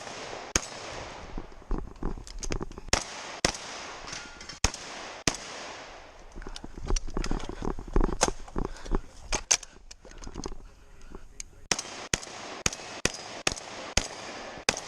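A long string of gunshots at uneven spacing, roughly one every half second to two seconds, each a sharp crack.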